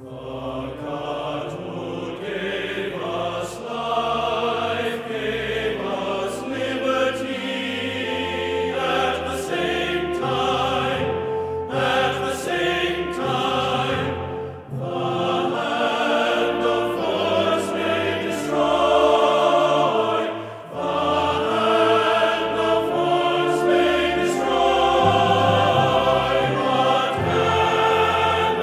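Choral music: a choir singing sustained chords that change every second or so, with two brief drops in level partway through.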